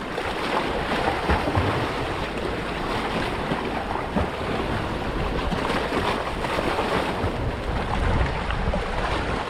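Steady wash of sea water against a small boat, mixed with wind buffeting the microphone.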